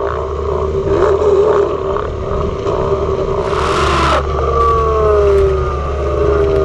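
Car exhaust note blown through a megaphone horn tied over the tailpipe while the car drives slowly, giving a loud, horn-like buzzing drone. About three and a half seconds in the pitch climbs with a short rush of hiss as the engine revs, then falls steadily as the throttle eases off.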